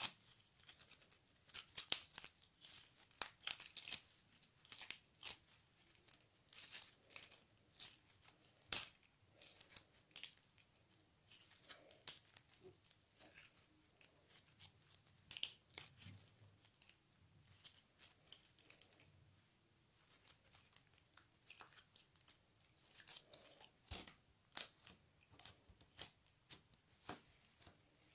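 Metallic slime being stretched, folded and pressed by hand, giving an irregular stream of small crackles and pops.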